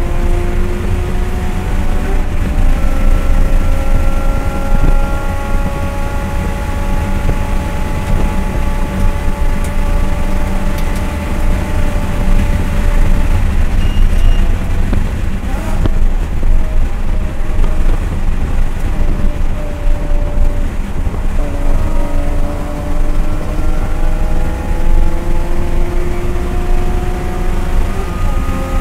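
Race car engine running at high revs under full throttle, heard from inside the cabin over a heavy low drone of wind and road noise. Its pitch climbs slowly, drops about two-thirds of the way through, then climbs again.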